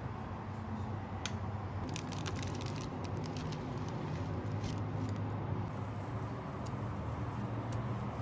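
Plastic wrap on a pack of enoki mushrooms crinkling as it is torn open, a quick run of crackles in the first few seconds, over a steady low hum. A few single clicks follow later.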